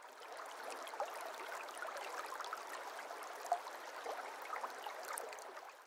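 A small stream running over rocks: a steady babble and trickle of water that fades in at the start and fades out just before the end.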